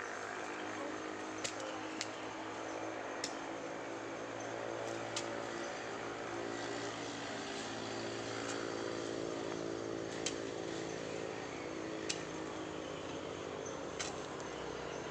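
A garden hoe's blade striking and scraping the soil, sharp knocks coming irregularly every second or two, over a steady background drone of a motor.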